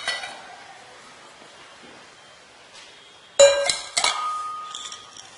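Steel cup set down on a stone countertop: a sharp clink, then a second clink that leaves a clear metallic ring fading over about a second.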